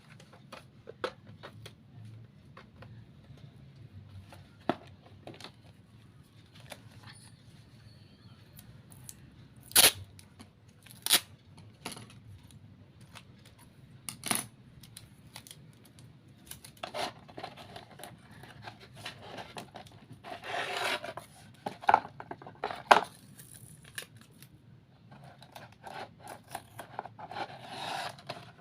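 Hands working craft materials for a model: scattered sharp clicks and taps, with longer rustling, tearing stretches about two-thirds of the way in and again near the end.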